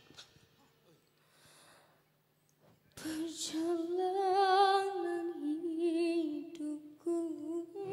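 Music fades out to near silence, then about three seconds in a solo voice starts singing long held notes with a wavering vibrato, unaccompanied.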